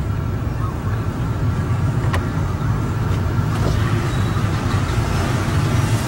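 Steady engine and road rumble heard inside the cabin of a car moving through traffic, with a couple of light clicks.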